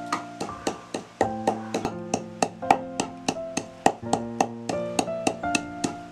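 Background music: a keyboard or piano melody over a quick, steady percussive tick of about four beats a second.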